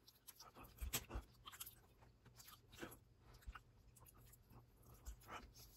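Faint chewing of a mouthful of soft, melting chocolate. Wet mouth smacks and short soft clicks come at uneven intervals.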